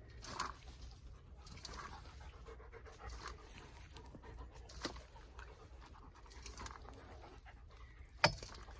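A dog panting softly in short repeated breaths, with one sharp click or knock near the end.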